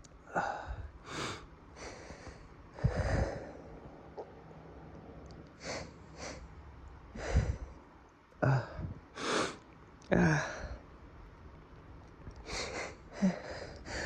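A man sniffling and breathing hard through a runny nose again and again: short, noisy sniffs and breaths about a second apart, some in quick pairs.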